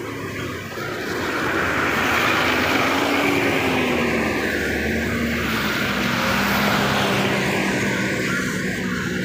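A double-decker bus's diesel engine running close by, over street traffic noise. The noise swells over the first second or two and stays loud, with a low engine hum that shifts slightly in pitch.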